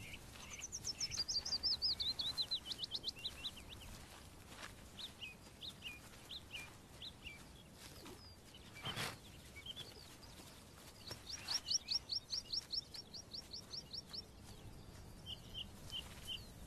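A songbird singing two rapid trilled phrases several seconds apart, the first falling in pitch, with scattered short chirps between them. A soft knock comes about nine seconds in.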